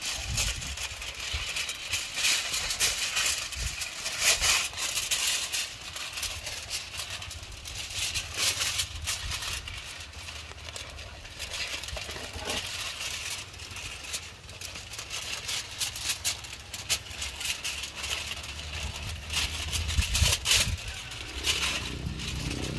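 Aluminium foil crinkling and rustling in irregular crackles as a sheet is folded and pressed down by hand.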